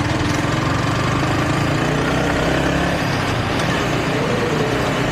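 Motorcycle engine running steadily as it is ridden along a road in traffic, under a steady rush of wind and road noise.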